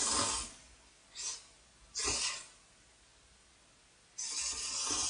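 A person slurping thick beef-broth ramyeon noodles from a bowl: four breathy sucking slurps, the last and longest near the end.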